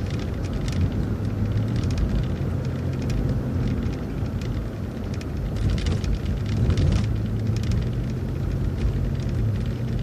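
City transit bus running along the road: a steady engine drone with road noise, and light rattles now and then.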